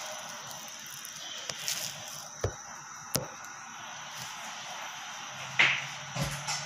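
Handling knocks and clicks as a phone is moved and set down, then a louder knock and clatter at the stove near the end, over a steady background hiss.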